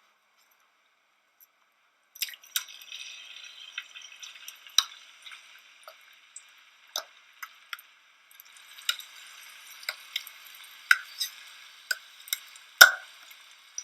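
Sliced potatoes and onions sizzling in hot olive oil in a frying pan, with many sharp pops and crackles. The sizzle starts about two seconds in, eases for a moment, then picks up again. Near the end there is one sharp knock.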